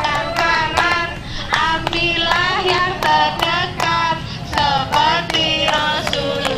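A group of young children and women singing a children's song together, clapping their hands in a steady rhythm.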